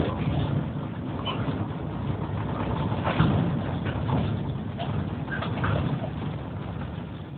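Car engine and road noise inside the cabin while driving: a steady low rumble that swells and eases slightly.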